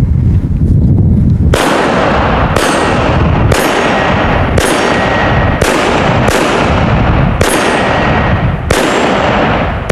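Walther WMP semi-automatic pistol in .22 Magnum firing eight shots, roughly one a second, each with a sharp crack and a short echoing tail. A low rumble comes before the first shot.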